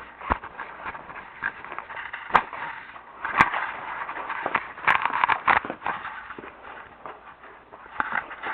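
Footsteps and rustling while walking: irregular sharp knocks over a scraping noise, busiest around the middle.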